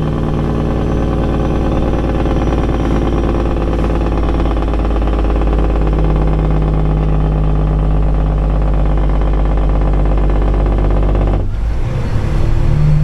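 Kenworth dump truck's diesel engine on the Jake brake (compression-release engine brake), held in one gear to slow the loaded truck down a long incline, heard from inside the cab. The steady drone breaks off abruptly near the end.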